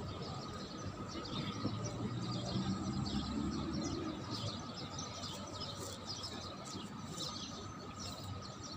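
Small birds chirping and twittering throughout, over a steady background hum.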